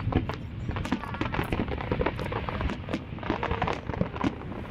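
Aerial fireworks crackling: a dense run of rapid, irregular pops and snaps.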